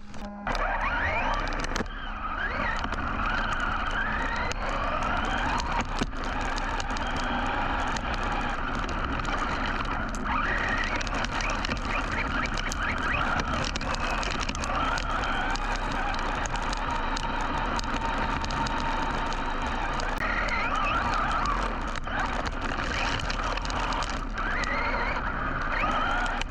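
Team Associated Rival MT10 RC monster truck's brushless motor whining over a steady rush of drivetrain and tyre noise, the whine rising and falling in pitch again and again as the throttle is worked. A few sharp knocks come through along the way.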